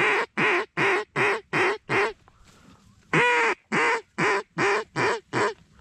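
Hen mallard quacking in two runs of six and seven quacks, about three a second, with a pause of about a second between them. It is the mallard hen's repeated quack series used to draw circling ducks in.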